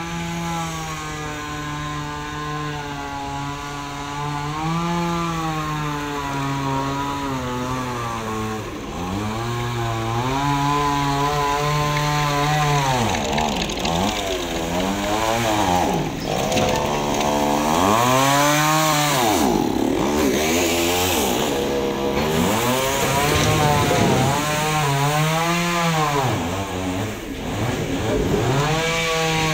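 Chainsaw running and cutting into a log. After a steadier first few seconds, the engine pitch drops and climbs again every couple of seconds as the chain bites into the wood and frees.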